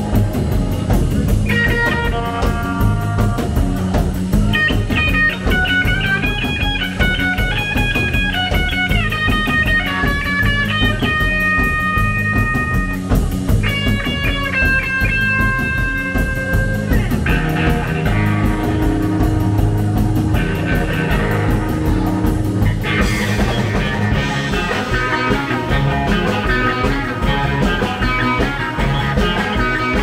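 Live rock-and-roll band playing: a lead guitar line of held and sliding notes over bass and a steady drum beat, with the whole band filling out about two-thirds of the way through.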